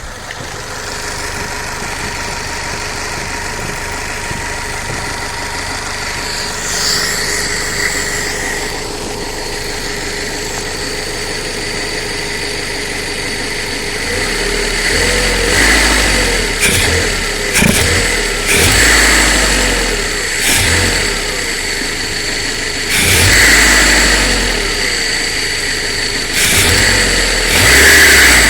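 Fiat Punto 1.2 8-valve four-cylinder petrol engine idling with a misfire on cylinder 2, then revved up several times in the second half, with a few sharp snaps among the revs.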